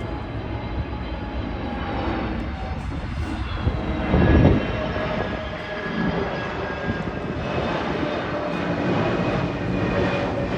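Airbus A321neo on final approach, its CFM LEAP-1A turbofans and the airflow making a steady rumble with several whining engine tones, the higher ones wavering in pitch. A louder rush swells and fades about four seconds in.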